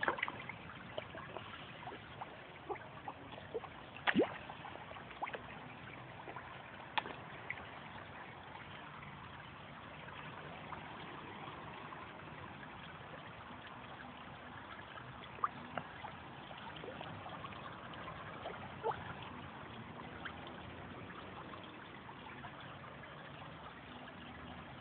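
Pond water lapping and trickling as koi take food from a hand at the surface, with a few sharp little splashes.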